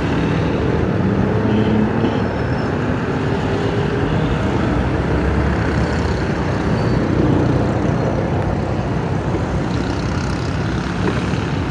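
Steady rumble of road traffic and engines, even throughout with no single event standing out.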